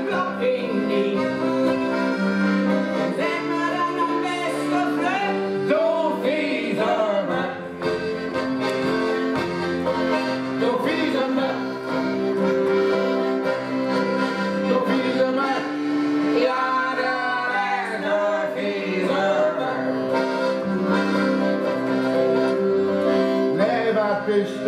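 Instrumental passage of a piano accordion playing a melody over steady held chords, with a small acoustic guitar strummed along.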